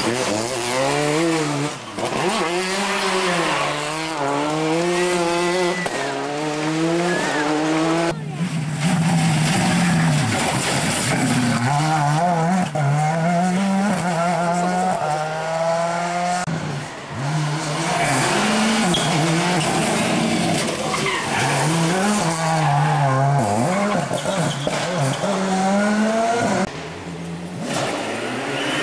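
Rally cars driven flat out past the microphone one after another, engines revving hard, their pitch climbing and dropping again and again through the gears. The sound breaks off abruptly a few times as one car gives way to the next.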